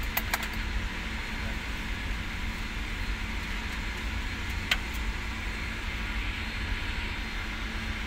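Steady low rumble of an engine running, with a faint constant hum over it. A few light clicks come near the start and one sharp click about halfway through as the wired switch is handled.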